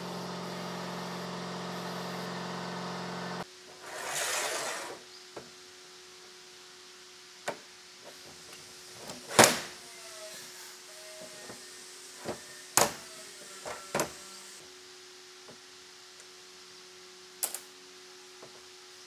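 A machine's motor runs with a steady hum, then stops abruptly about three and a half seconds in. A brief rushing noise follows, then a series of separate knocks and clicks, the loudest about halfway through, over a faint steady hum.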